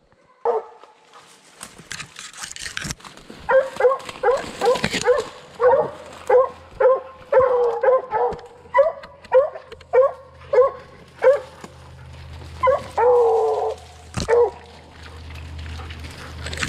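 Redbone coonhounds barking treed: a steady run of short barks, a little under two a second, then a longer drawn-out bark near the end, the sign that they are holding a raccoon up a tree. Brush and branches crackle early on as someone pushes through toward them.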